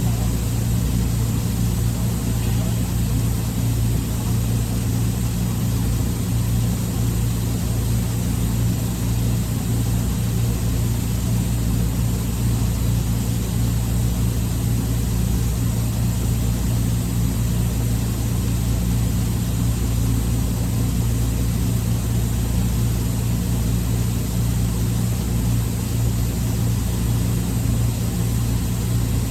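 Steady, unchanging low machinery drone with a constant hum, like an engine or large machine running at a steady speed.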